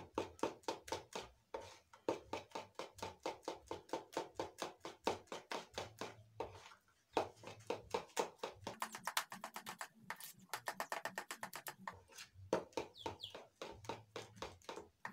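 Hand mixing flour and milk into a thick pancake paste in a bowl: quick, rhythmic wet slapping and tapping strokes, about five a second, with a few short pauses.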